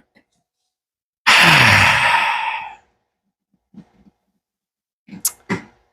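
A man's heavy sigh, breathy with his voice dropping in pitch, lasting about a second and a half.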